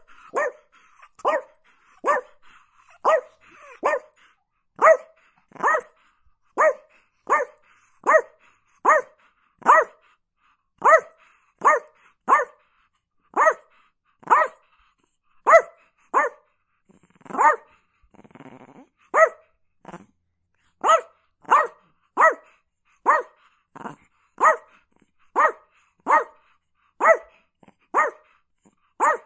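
A chihuahua barking repeatedly in short, sharp, high-pitched barks, a little more than one a second, with a brief break about two-thirds of the way through.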